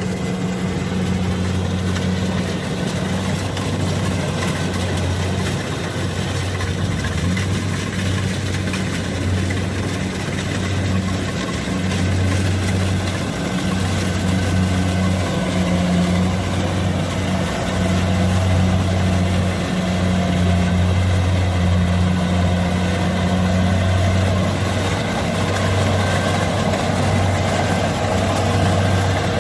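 Kubota combine harvester's diesel engine running steadily with a low hum.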